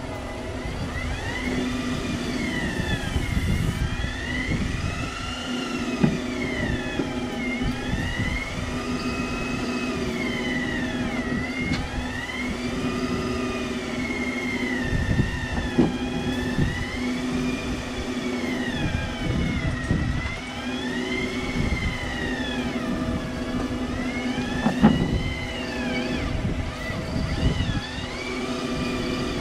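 Electric fishing reel winding in line under load: its motor whine rises and falls in pitch every two to three seconds as the strain on the bent rod changes. A steady low hum runs underneath.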